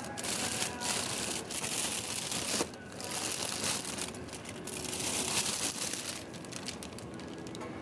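Plastic packaging crinkling and rustling close to the microphone in uneven bursts, with a short pause about two and a half seconds in.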